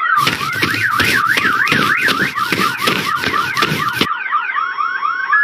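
Cartoon fire alarm siren sounding: a rapid whooping tone rising over and over, about four times a second. A loud rushing noise covers it until about four seconds in, then stops suddenly and leaves the siren on its own.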